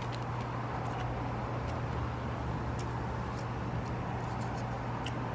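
Steady low hum with the even noise of traffic in the background, and a few faint clicks.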